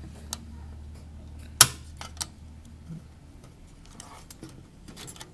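Scattered sharp clicks and taps of a screwdriver working against the plastic and metal parts of an Xbox 360 console during disassembly, the loudest about one and a half seconds in, over a low steady hum.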